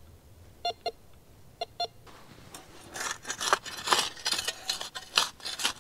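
Cheap Prospector metal detector giving two short double beeps about a second apart, signalling metal in the ground. From about halfway on, a run of scratchy scraping and rustling, as of digging through dirt and grass.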